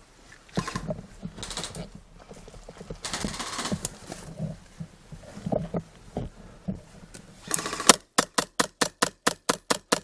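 Scattered rustling and knocking noises. Then, about eight seconds in, an airsoft gun fires a rapid string of about a dozen shots, roughly six a second.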